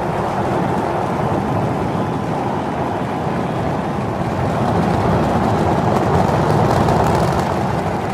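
Super Heavy booster's 33 Raptor engines at liftoff: a loud, steady rocket roar, deep and broad, swelling slightly about five seconds in.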